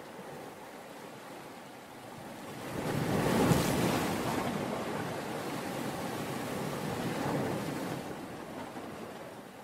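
Sea waves washing in, one swell building to a peak about three and a half seconds in and then slowly receding.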